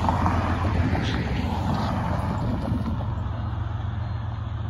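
A car driving past, its tyre and engine noise swelling over the first second or two and then fading, over a steady low rumble.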